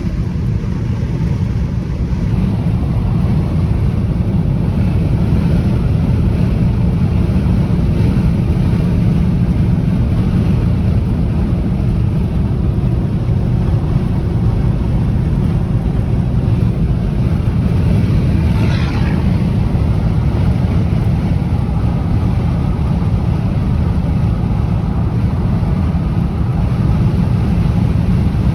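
Strong gusting wind buffeting the microphone: a loud, steady low rumble with a hiss of wind above it.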